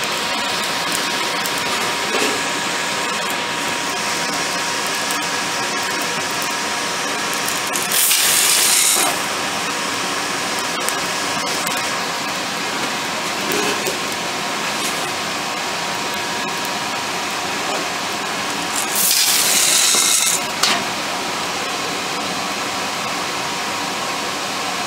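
A blacksmith's forge air blower running steadily. Twice, dry whole feed corn pours from a galvanized can into the forge's firepot in a rushing rattle of kernels lasting about a second each.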